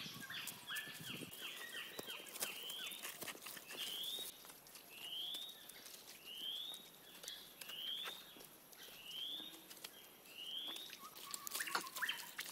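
Bird calling: a quick run of chirps for the first few seconds, then a short rising chirp repeated about once a second. Scattered light clicks and taps run underneath.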